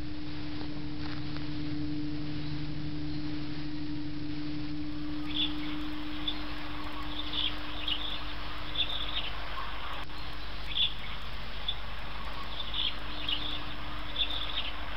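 Outdoor ambience with a steady hiss and a low hum that fades out about halfway through. From about five seconds in come short, high bird chirps, repeated at irregular intervals.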